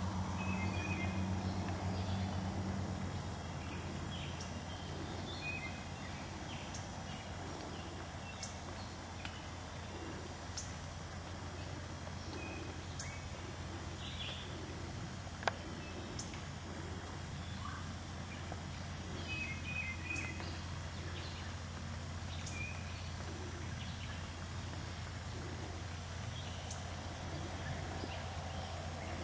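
Quiet woodland outdoors: scattered short, faint calls from a wild turkey gobbler and other birds over a steady low hum, with one sharp click about halfway through.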